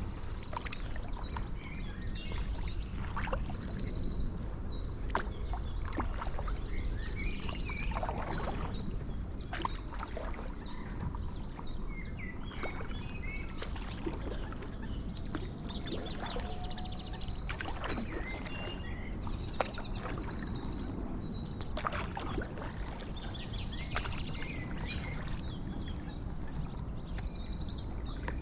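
Paddle strokes splashing and dripping in canal water over a steady low wind rumble on the microphone, while small birds sing nearby with a rapid high trill repeating every few seconds.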